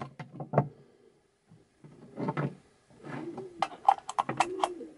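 Handling noise from an opened electric drill and its loose parts on a concrete floor: scattered clicks and knocks, with two short humming sounds that rise and fall in pitch in the second half.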